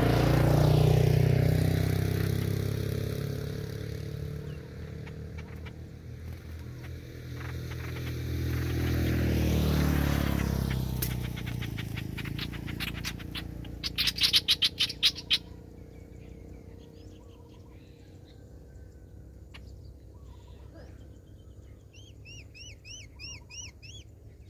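Two motor vehicles pass one after the other, each engine swelling and fading, the loudest about a second in and about ten seconds in. A small bird then gives a fast trill that grows loud for a moment around fourteen seconds, and near the end a bird gives about five quick chirps.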